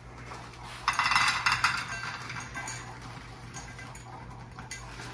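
Dry dog kibble poured from a plastic bag into stainless steel bowls: a dense rattle of pieces hitting the metal for about a second, starting about a second in, then a few scattered clinks.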